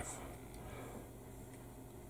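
Faint, quiet scraping of a hobby knife blade trimming a small plastic model-kit part.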